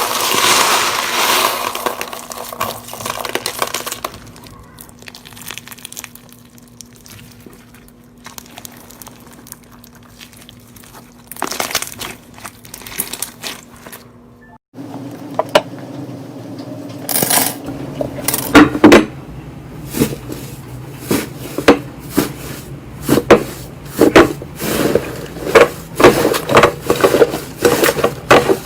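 Slime being squished and poked by hand: crunchy crackling at first, then, after an abrupt break about halfway, a run of sharp pops and clicks that grows denser toward the end.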